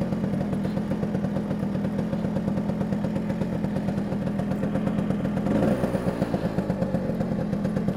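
Vespa P200E 200cc two-stroke single-cylinder engine running at low revs as the scooter rolls to a stop in traffic, its beat growing louder and more uneven about five and a half seconds in.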